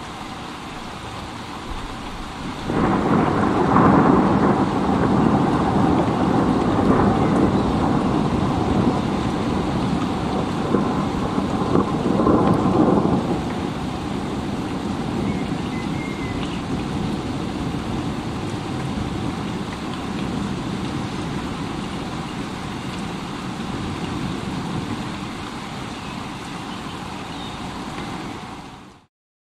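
Steady rain with a long roll of thunder that breaks in suddenly about three seconds in and rumbles for some ten seconds before settling back to the rain. The sound drops out to silence for a moment near the end.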